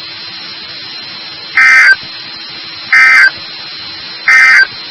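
Emergency Alert System SAME end-of-message data bursts on NOAA Weather Radio: three identical short, harsh digital buzzes about a second and a half apart, the three-times-repeated code that marks the end of the flash flood warning. A faint steady hiss and hum of the radio channel lies between the bursts.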